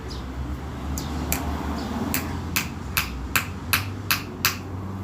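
A hammer driving a nail into a wooden block: about nine sharp strikes, the first two lighter, then a quicker run of blows at roughly two and a half a second.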